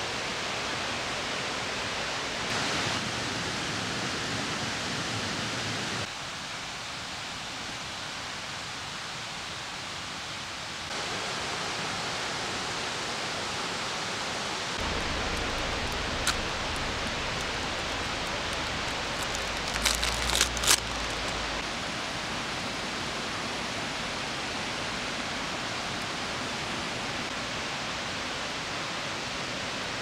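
Steady rushing hiss of outdoor night ambience. There is a sharp click about 16 seconds in, and a short cluster of clicks and rustles about 20 seconds in as snacks and tongs are handled on the table.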